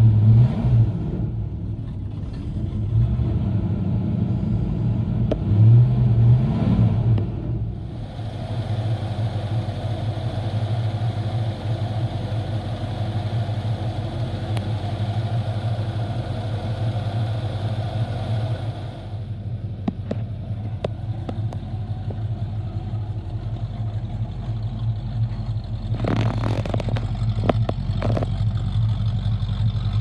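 A 1968 Ford Mustang's 289 cubic inch V8 with a four-barrel carburettor running: revved briefly twice in the first seven seconds, then idling steadily.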